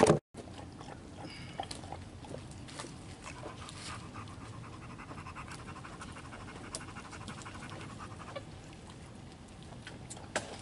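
A dog panting steadily, with a few faint clicks.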